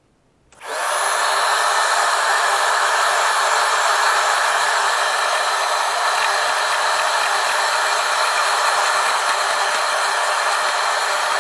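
Licorne YY6617 cordless wet-and-dry hand vacuum cleaner switching on suddenly about half a second in, then running steadily as it sucks up water spilled on carpet.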